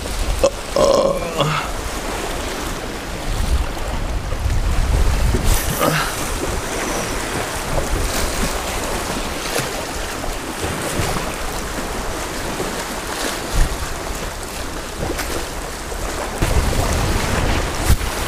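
Small waves washing over a rocky shoreline, with wind buffeting the microphone in a low rumble.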